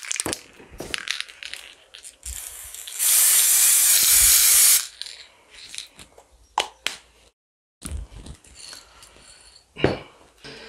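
Aerosol spray can spraying in one steady hiss of just under two seconds, about three seconds in. A few light clicks and knocks follow.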